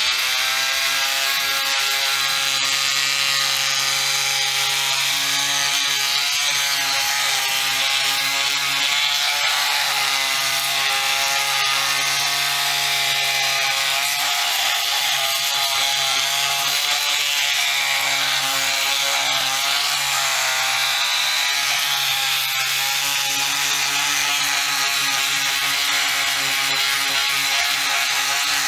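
Milwaukee cordless oscillating multi-tool fitted with a triangular 120-grit sanding pad, running steadily while it scuffs the fiberglass hull bottom to prepare it for an adhesive keel guard. It makes a continuous buzzing whine whose pitch sags briefly a few times.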